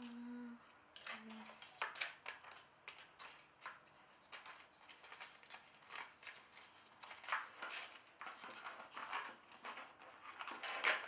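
Cardstock and paper tags rustling, sliding and ticking against each other as they are handled and pulled out of a small paper box, in quick irregular crackles.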